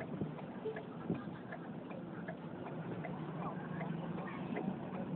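Inside a moving vehicle's cab: a steady engine and road hum with a light, regular ticking over it.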